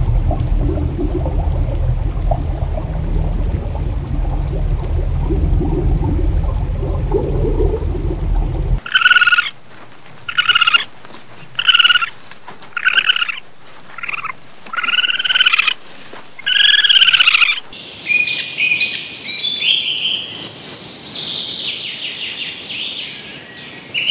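A steady low rumble for about the first nine seconds, then a run of about eight short, arched animal calls roughly a second apart, then quicker high-pitched chirps near the end.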